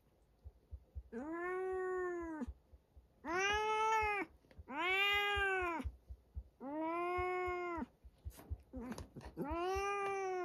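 A cat meowing five times, long drawn-out meows of about a second each that rise and then fall in pitch, with short pauses between them.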